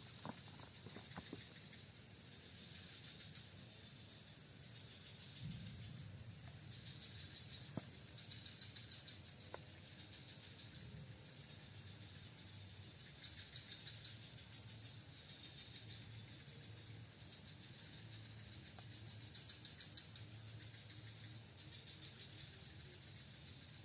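Insects droning in one steady, high, even tone, with trains of faster pulsing chirps coming and going underneath. A single sharp click about eight seconds in.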